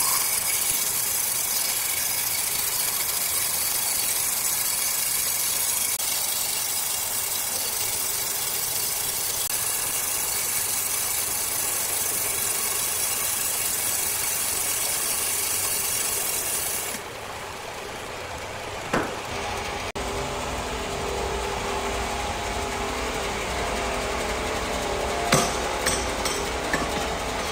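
Circular saw machinery running, a steady hissing noise. About seventeen seconds in, the sound changes to a lower machine hum, with a couple of sharp knocks.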